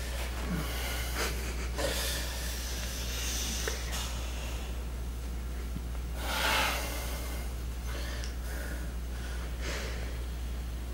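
Heavy breathing: short, noisy breaths at irregular intervals, the loudest a long exhale about six and a half seconds in, over a steady low hum.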